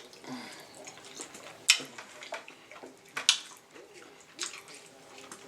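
Wet, sloppy eating and handling of sauce-covered king crab legs, with a few sharp clicks; the two loudest come about a third of the way in and again just past halfway.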